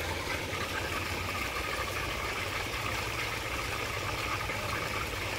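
A motor running steadily as a constant low hum with a faint hiss over it, unchanging throughout.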